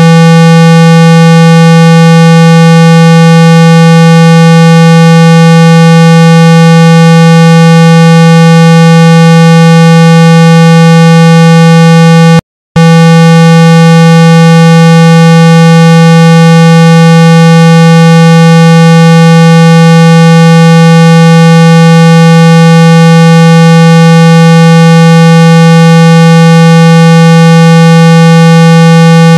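Steady, loud 165 Hz test tone, a low hum used to shake dust and water out of a phone speaker. It cuts out for a split second about twelve seconds in, then carries on unchanged.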